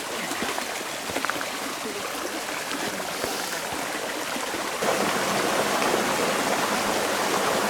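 Flowing stream water, a steady rushing wash with small splashy ticks in it, growing louder about five seconds in.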